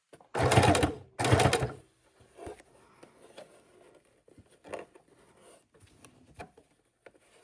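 Domestic sewing machine stitching in two short bursts of under a second each, close together, followed by a few faint clicks.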